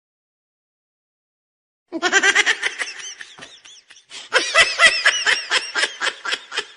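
About two seconds of dead silence, then a laughter sound effect: a high-pitched voice laughing in quick repeated bursts of "ha", with a second, louder burst about four seconds in.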